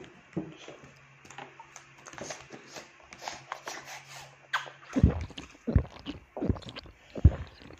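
A small child drinking from a plastic bottle held close to the microphone: small clicks and mouth sounds, then from about five seconds in a run of low gulps roughly every 0.7 s.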